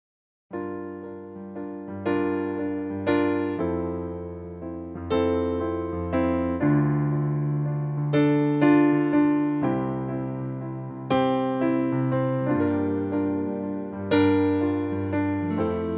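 Keyboard played in a piano voice: chords struck one after another, a new one about every second or so, each ringing and fading. It starts about half a second in.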